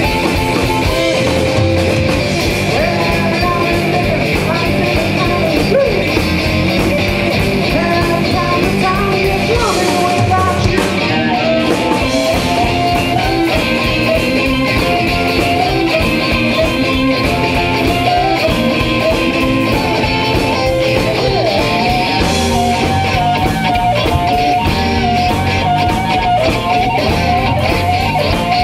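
A blues band playing live: electric guitar, electric bass and drum kit, with a cupped blues harmonica. A bending lead line comes to the fore in the second half.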